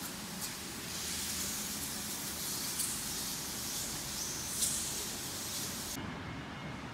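Steady background hiss of room noise with a few faint clicks; the high part of the hiss drops away about six seconds in.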